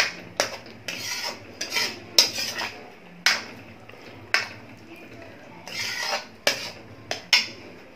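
Steel ladle stirring a thick masala gravy in a metal kadhai: scraping along the pan's sides, with sharp clinks against the metal at irregular intervals, about once a second.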